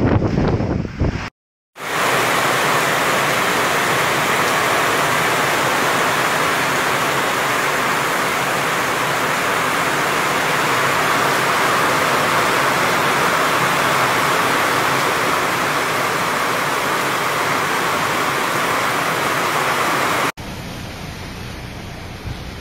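Heavy typhoon rain pouring onto banana plants, a loud, steady, even hiss, after a moment of silence about a second and a half in. Near the end it cuts to quieter gusting wind.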